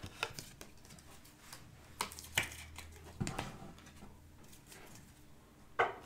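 Trading cards being handled on a desk: a few soft taps and light rustles as a card is set down on a stack of cards, with the sharpest tap near the end.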